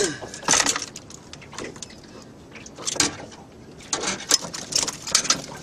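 Irregular knocks, clicks and rustles from a just-landed flathead and fishing gear being handled in a boat, with several sharp taps, most of them clustered in the second half.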